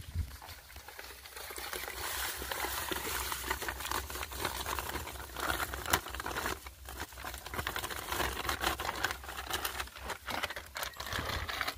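Thin plastic packet crinkling as powdered fertiliser is shaken out of it, pattering into a bucket of water; a continuous fine crackle.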